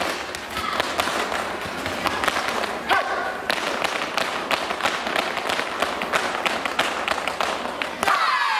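Dancers' shoes stamping and tapping on a concrete floor in quick, dense footwork. Near the end the stamping stops and a falling tone begins.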